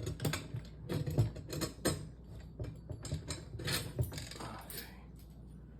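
Metal clicking and clanking from hand tools and wheelchair frame parts being handled during disassembly: an irregular string of sharp knocks that thins out near the end.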